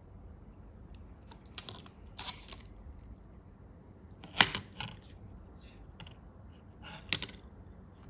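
A few sharp clicks and light rattles of small hard objects being handled, spaced out over several seconds, the loudest about four and a half and seven seconds in.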